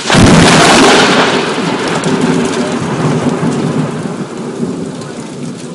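Thunder: a loud clap that hits suddenly, then rumbles on and slowly fades, over steady heavy rain.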